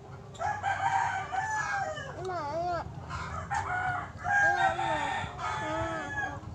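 Several roosters crowing one after another, their long calls overlapping.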